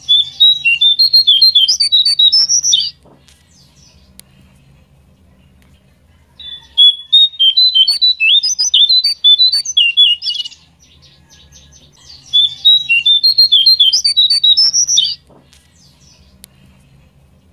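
A jongkangan (ferruginous babbler) singing three bouts of rapid, jumping whistled notes, each lasting about three to four seconds, with a few seconds of pause between them.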